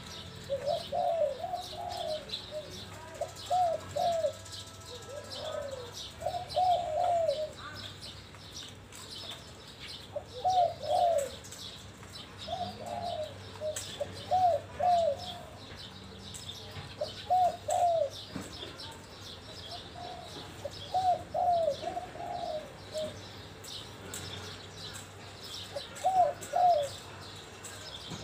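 Spotted dove cooing in short phrases of two or three rolling, arched coos, repeated every couple of seconds with a few longer pauses. Small birds chirp thinly and high throughout.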